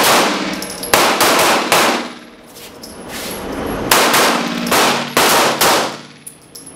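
Pistol shots fired in an indoor shooting range, each sharp crack trailing a hall-like echo. One quick string of shots comes in the first two seconds, and another about four seconds in.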